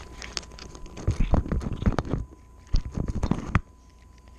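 A cat crunching dry kibble, heard at very close range from the food dish: two runs of quick crunching bites, about a second each, starting about a second in and stopping well before the end.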